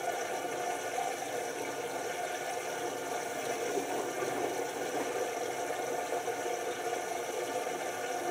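LG TurboWash 6 Motion front-loading washing machine in its first rinse: the drum turns on its direct-drive motor with a steady whir while the wet laundry tumbles inside.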